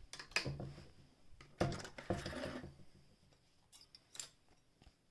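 Scattered light metallic clicks and knocks from a vintage Singer 467 electric sewing machine being handled at its needle and presser foot as the fabric is taken out, loudest about one and a half to two and a half seconds in.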